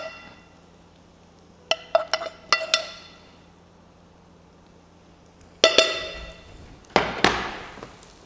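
Metal spoon clinking against a frying pan as food is spooned out: quick ringing clinks in two bursts, then a heavier metal knock about seven seconds in as the pan is put down.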